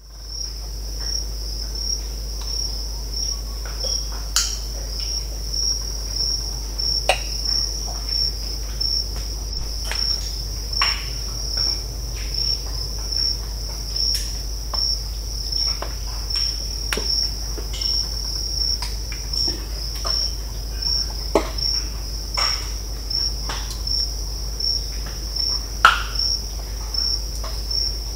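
Mangrove swamp ambience: a cricket chorus gives a steady, pulsing high-pitched trill, while scattered sharp crackles, snaps and pops come from the mangrove trees. The loudest pop comes near the end.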